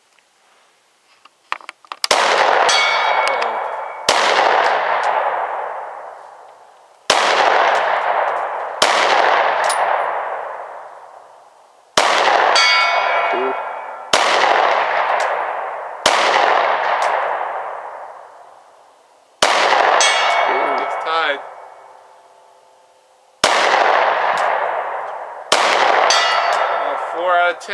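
Handgun shots fired one at a time at a steel target 100 yards off, about ten of them a few seconds apart, each a sharp crack with a long echo dying away. After four of the shots, one near the start, two in the middle and one near the end, the steel plate rings with a ding about half a second later: a hit.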